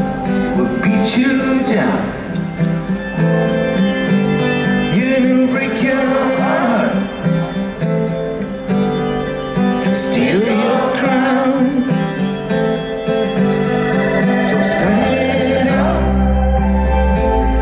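A live rock band plays with acoustic guitar strumming, keyboards and sung phrases recurring every few seconds. A deep bass comes in near the end.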